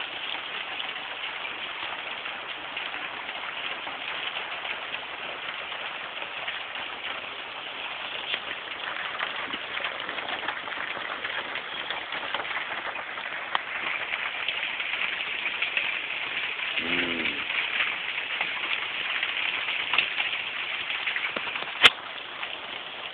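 Soft hail falling steadily, a dense pattering hiss on the car and the ground, a little heavier in the second half. A short low call sounds about two-thirds of the way in, and there is one sharp click near the end.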